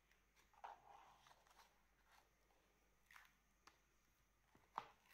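Faint handling noise: a few soft rustles and taps of cardboard disc packaging handled with cotton gloves, the loudest tap near the end.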